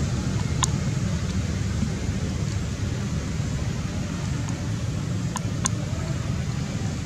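Steady low rumbling background noise, with three brief sharp ticks: one about half a second in and two close together near five and a half seconds.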